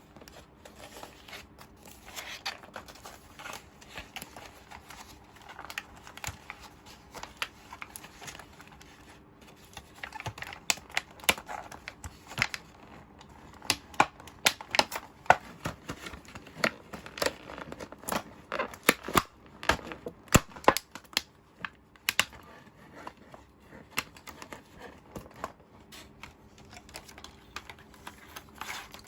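Hands unpacking and handling a Hello Kitty Nurse Station miniature toy set: irregular clicks and taps of small plastic pieces, densest and loudest in the middle stretch.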